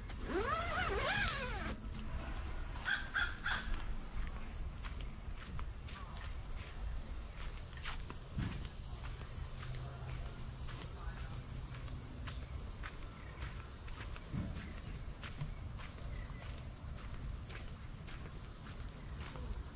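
Steady high-pitched insect chorus, pulsing evenly, with a few short bird calls about three seconds in.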